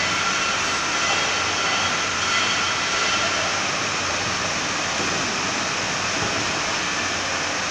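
Steady, loud mechanical roar of industrial background noise, with faint high whines that fade out about three and a half seconds in.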